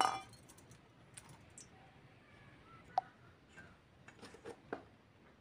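Scattered light clicks and clinks of kitchen utensils and steel bowls being handled: a brief ringing clink at the start, a sharp clink about three seconds in, and a few quick taps near the end.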